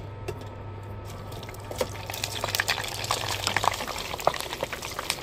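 Kikiam (Filipino fish-ball rolls) frying in hot oil: a sizzle full of small pops and crackles, which get busier from about two seconds in.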